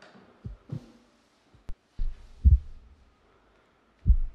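Heartbeat sound effect: low, muffled thumps coming roughly in pairs, with a single sharp click partway through.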